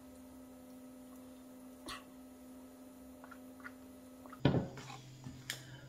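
Faint mouth sounds of eating noodles with a few small clicks, then drinking water from a glass: a short gulp about four and a half seconds in and two smaller ones after it.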